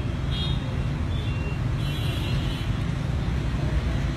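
Steady low rumble of street traffic, with two brief faint higher sounds, about half a second and two seconds in.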